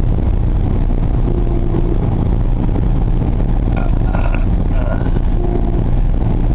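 Steady low engine and road rumble heard inside a moving car's cabin.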